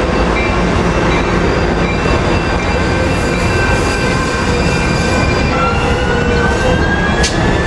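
Amtrak bilevel passenger coaches rolling past, a steady rumble of wheels on rail with high-pitched wheel squeal; one squeal tone slides upward in pitch in the second half, and there is a sharp click near the end.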